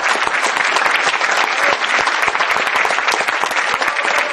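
Concert audience applauding steadily: many hands clapping densely together in a reverberant hall at the end of a piano recital piece.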